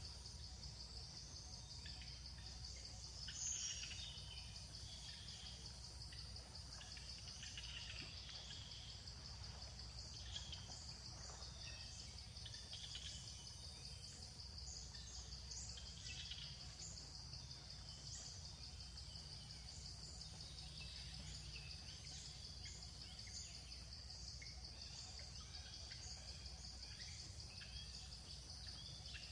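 Faint, steady high-pitched insect trilling with a fine pulse, with many short high chirps scattered over it.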